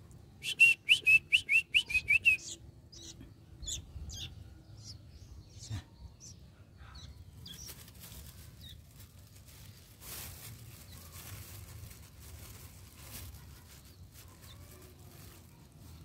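Fledgling sooty-headed bulbuls (kutilang) calling: a fast run of about ten sharp, high chirps, some five a second, in the first couple of seconds, then a few scattered softer calls.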